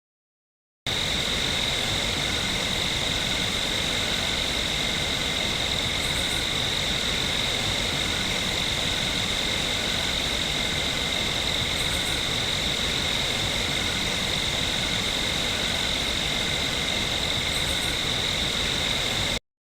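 Steady chorus of insects such as crickets over a constant hiss, a nature-ambience sound effect. It starts about a second in and cuts off abruptly near the end.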